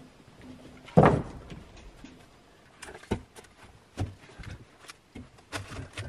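A heavy thump about a second in, followed by several lighter knocks and clicks.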